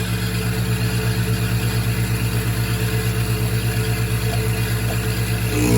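Van Norman FG1000 flywheel grinder running, a steady low electric-motor hum with a regular pulsing of about six beats a second as the grinding head is lowered toward the flywheel face.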